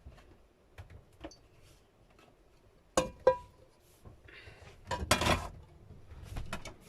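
Dishes and cooking utensils clinking and clattering: scattered light knocks, two sharp ringing clinks about three seconds in, then a longer clatter around five seconds.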